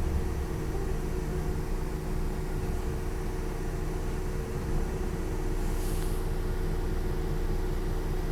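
A bus engine running steadily with a low rumble and a constant hum. A short high hiss comes about six seconds in.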